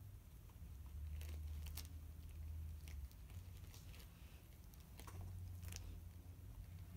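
Puppy chewing and gnawing on a plush toy: scattered faint crunching clicks, over a low hum that comes and goes.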